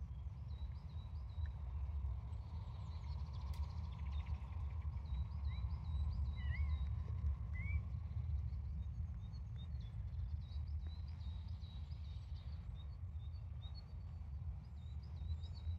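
Small birds calling outdoors: strings of short, high chirps, with a few rising chirps in the middle, over a steady low rumble.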